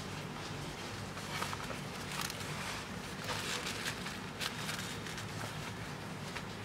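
Crocodile leather wallets handled with cotton gloves: irregular soft rustling and light clicks as they are opened, turned and put down, over a steady low hum.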